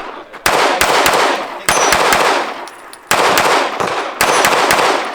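Pistol shots in rapid groups of two or three, about a second apart, with the high ring of steel targets being hit after some shots.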